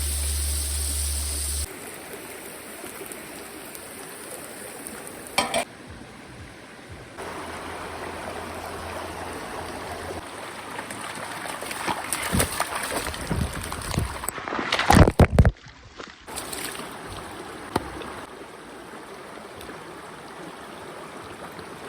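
Stream water running steadily, heard across several abrupt cuts, with a sharp knock about five seconds in and a cluster of loud clatters and splashes shortly after the middle.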